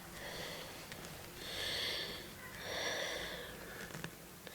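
A person breathing close to the microphone: three soft, hissy breaths, each under a second long, about a second apart.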